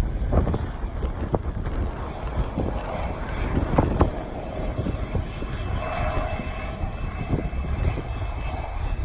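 Airplane engine noise: a steady low rumble, with a faint high whine coming in about halfway through.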